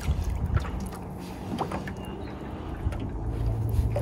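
Low steady hum of a boat's motor, growing stronger about three seconds in, with a few short knocks.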